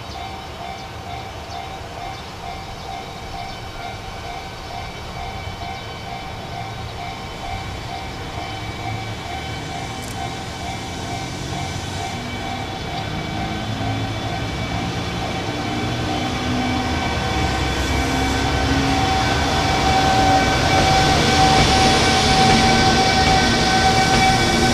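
EF210 electric freight locomotive hauling a container train slowly past: running and wheel noise growing steadily louder as the locomotive and then the container wagons go by, with several steady high tones over the rumble.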